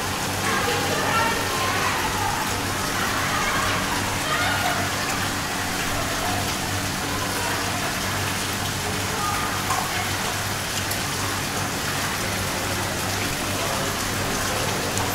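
Steady splashing of a small fountain's water jets falling into stone basins, with a low steady hum underneath.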